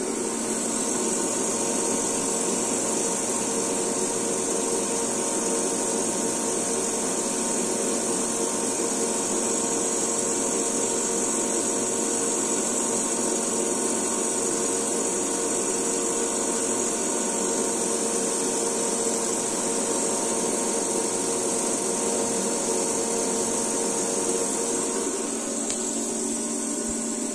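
Electric motor load drawing power from a 60 V lithium-ion battery pack under a discharge test: a steady mechanical whir with a constant hum and a high hiss, unchanging throughout.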